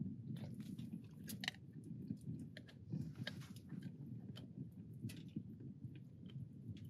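Alaskan Malamute chewing a sausage: faint, irregular clicks and snaps of its jaws and teeth.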